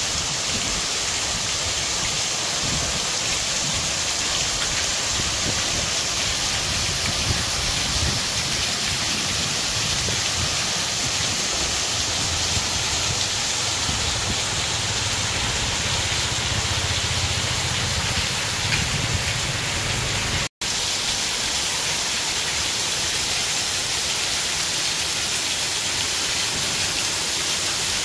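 Heavy rain pouring down steadily as an even hiss onto paving and standing water. A low rumble lies under it for several seconds in the middle. The sound cuts out for an instant about twenty seconds in.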